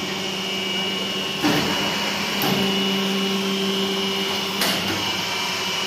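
Paper plate making machine running: a steady electric motor hum with a high whine, with three sharp clacks spaced unevenly through it.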